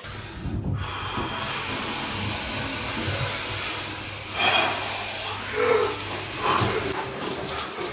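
Shower spraying water: a steady hiss that sets in about a second in.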